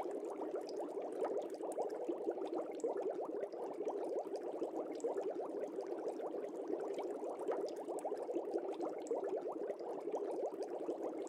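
Steady bubbling of an aquarium's air-driven sponge filter: a fast, even crackle of small bubble pops.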